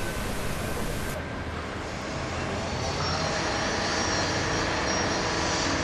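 Steady engine rumble in outdoor city noise, slowly growing louder from about three seconds in.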